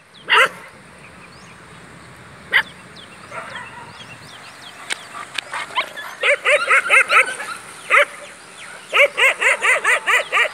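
Dog barking: a few single barks, then two quick runs of about five or six barks each, one near the middle and one near the end.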